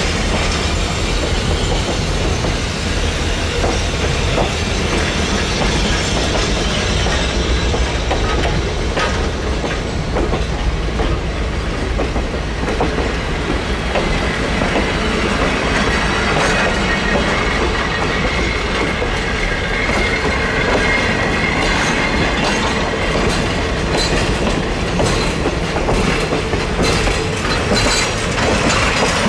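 Passenger train cars rolling past close by: steel wheels clicking over rail joints, with a faint squeal from the wheels at times.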